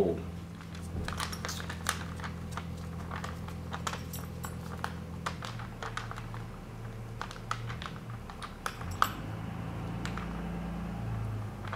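Clear plastic film crinkling and crackling under gloved hands as wet carbon fiber and foam core strips are pressed into place: irregular small clicks, over a steady low hum.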